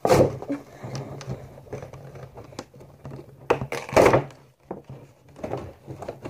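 Clear plastic doll packaging being handled and pulled at: uneven crinkling and rustling of the plastic window box, with sharp knocks at the start and about four seconds in.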